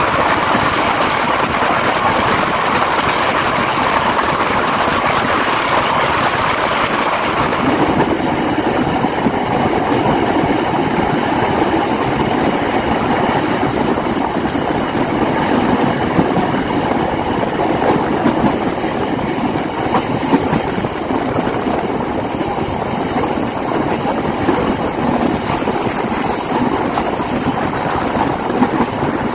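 Passenger train carriages running at about 75 km/h: a steady rush of wheels on rail with occasional light clicks of rail joints. About eight seconds in, the rushing noise turns deeper.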